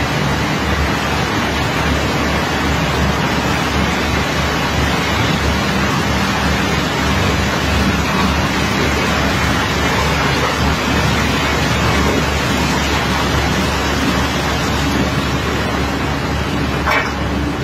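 Steady rush of water from a hose jet hitting iron ore and running over a steel barge deck, over the low drone of a running engine. A short knock near the end.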